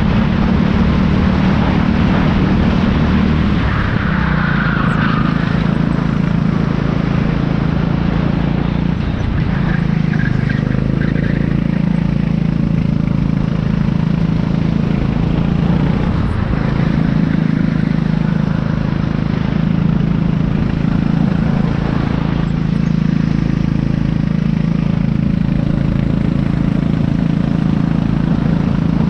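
Racing kart engine under way at speed, heard from on board. Its pitch shifts a few times as the kart slows into corners and picks up again.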